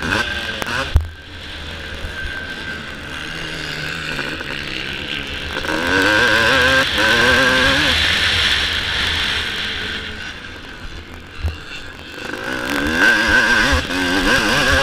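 A 1984 Suzuki RM250 two-stroke single, fitted with a 1982 cylinder head, revs up and down as it is ridden hard, pulling up through the revs twice, with wind buffeting the onboard microphone. A few sharp knocks come from the bike, one about a second in and another near eleven seconds.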